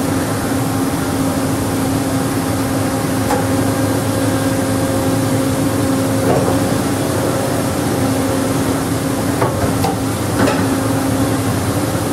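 Makino MC65 horizontal machining center running: a steady mechanical hum with a held tone, and a few light clicks and knocks scattered through.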